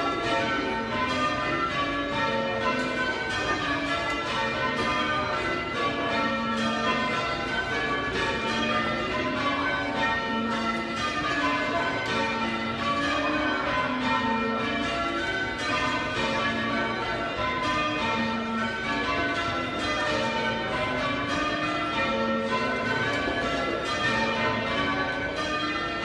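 Change ringing on a ring of eight church bells, rung full-circle by hand on ropes: the bells strike one after another in a continuous, even sequence, each stroke ringing on under the next.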